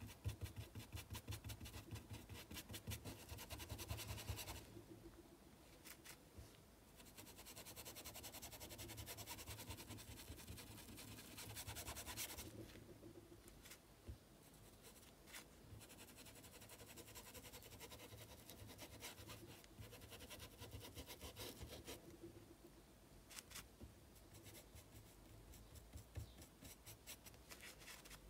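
Faint scratching of a paintbrush worked over fabric in quick, short strokes, in bouts: a busy run at the start, another from about seven to twelve seconds in, then lighter scattered strokes.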